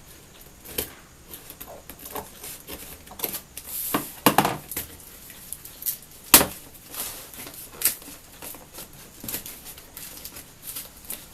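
Objects being handled: irregular taps, knocks and rustles, loudest in a cluster about four seconds in and in a sharp knock a couple of seconds later.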